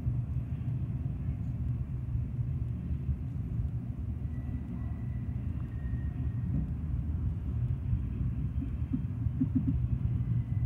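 CN double-stack intermodal container train rolling past, a steady low rumble of its cars on the rails, with a faint thin high tone between about four and six seconds in.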